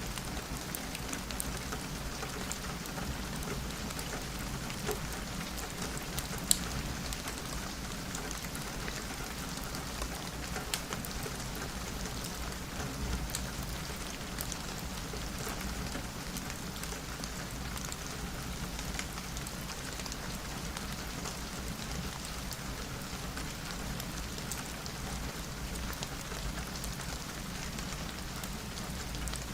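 Steady rain on a window, with scattered sharp ticks and clicks through it, one louder click about six seconds in.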